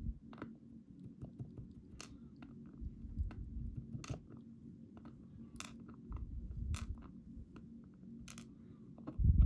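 Small lock pins and tools clicking and tapping as key pins are shaken out of a Schlage Primus lock cylinder: scattered sharp ticks, with a few dull handling bumps.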